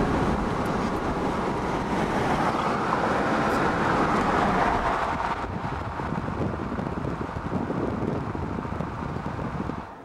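Steady road and wind noise inside a moving car at highway speed, with no clear engine note. It drops away suddenly near the end.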